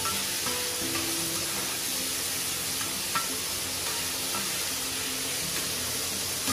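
Shredded meat sizzling steadily as it is stir-fried with a metal spatula on a wide, hot iron pan, with a few short scrapes and clicks of the spatula against the pan.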